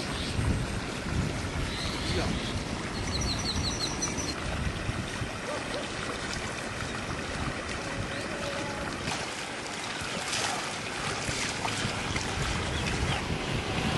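Outdoor rush of wind on the microphone over moving floodwater, a steady noisy wash with an uneven low rumble, and a short high trill about three seconds in.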